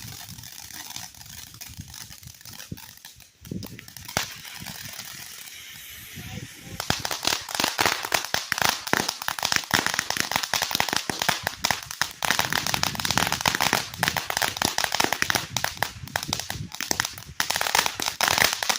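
Ground firework crackling: a softer hiss with a few scattered pops at first, then about seven seconds in a dense, rapid run of cracks, many a second, that keeps going.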